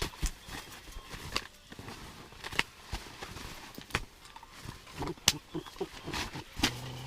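Irregular sharp knocks and taps on the ice, some in quick clusters, from a freshly landed burbot and its handling.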